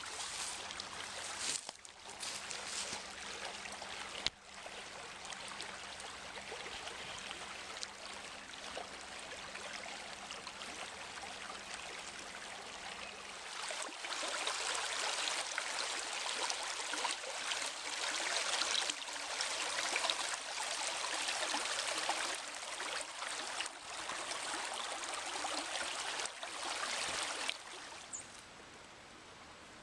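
Running water of a small stream, a steady rushing hiss that grows louder about halfway through.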